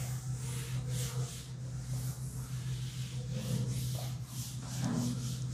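Felt duster wiping a chalkboard in repeated strokes, about two a second, over a steady low hum.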